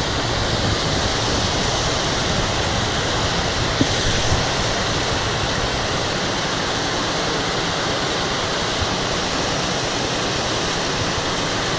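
Steady rushing of moving water in a rain-swollen pond, an even hiss with no change, and a couple of faint clicks about four seconds in.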